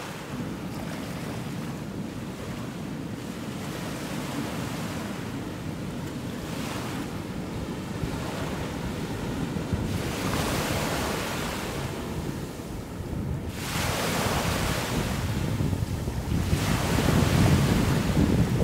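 Sea waves washing in, in swells of hiss every few seconds, over a low rumble of wind on the microphone. It grows louder toward the end.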